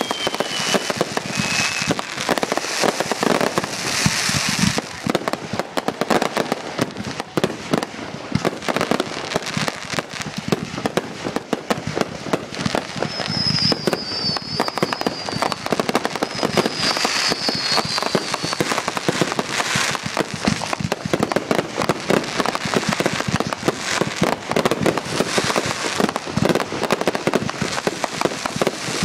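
Consumer firework cakes firing a finale barrage: a dense, unbroken stream of launch thumps and popping, crackling breaks from several cakes at once. A falling whistle sounds near the start, and two high wavering whistles come around the middle.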